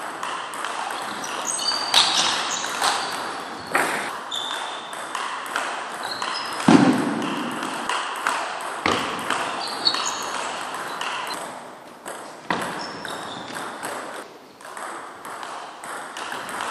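Table tennis rally: the celluloid ball clicking off rackets and table in a quick back-and-forth series of sharp pings, with echo from the hall. A heavier thump stands out about seven seconds in.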